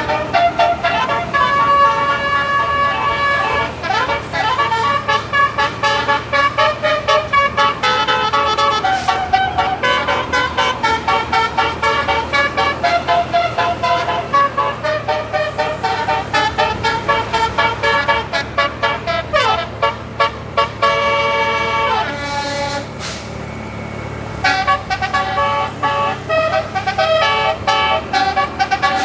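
Tour bus's Basuri telolet multi-tone horn playing a long run of fast, changing tooting notes, with a few sliding tones among them and a short lull about three-quarters of the way through. The bus engine hums low underneath.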